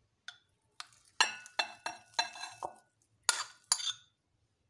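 Metal spoon clinking and scraping against glass dishes as mashed potato is spooned into a cut-glass bowl: about nine sharp clinks with a brief glassy ring, the loudest about a second and three seconds in.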